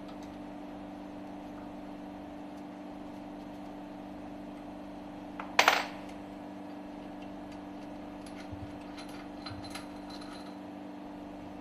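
One sharp metal clink about halfway through, then a few faint metallic ticks, as the two screws are loosened with a hex key and removed from a marine diesel engine's puncture valve held in a bench vise. A steady low hum runs underneath.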